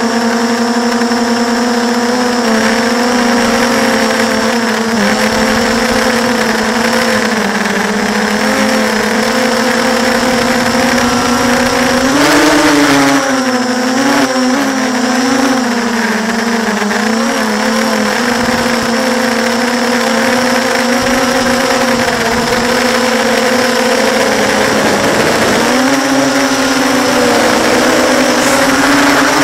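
6-inch FPV drone's brushless motors and propellers whining steadily, heard through the onboard camera. The pitch wavers about halfway through and dips then climbs near the end as the throttle changes.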